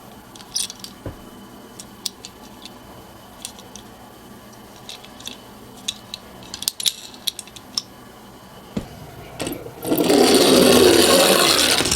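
Toy minicars giving scattered light clicks and taps, then, about ten seconds in, a louder continuous clatter lasting about two seconds as a minicar runs down the slope.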